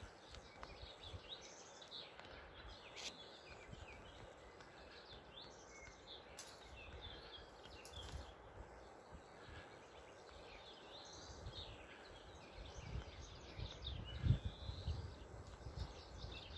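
Small birds singing and chirping faintly in woodland, many short high calls overlapping throughout. Low rumbles grow stronger in the last few seconds.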